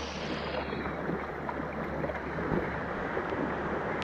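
Wind buffeting the microphone and shallow surf washing around a beached kayak's hull. The hiss of the wash fades within the first second, leaving a steady low rush.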